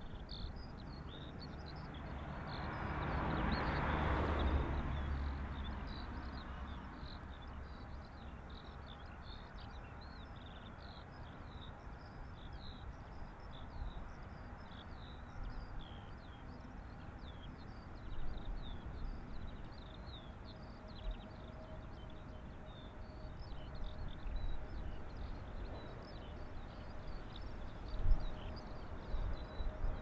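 Small birds chirping continuously over wind rumbling on the microphone, with a gust swelling and fading about four seconds in and a few buffets near the end. A faint steady hum from the approaching Airbus airliner's engines comes in about twenty seconds in.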